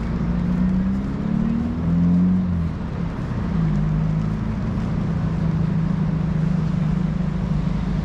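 Car engine running at low speed, its hum drifting a little higher and lower as the vehicle speeds up and eases off, over a steady rush of tyre and wind noise.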